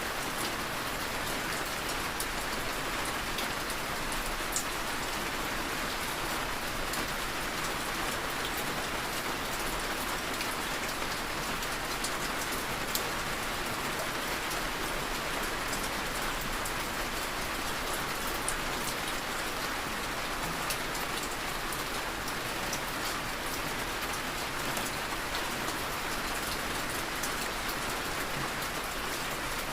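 Heavy rain falling steadily, a dense even hiss with many small sharp drop ticks scattered through it.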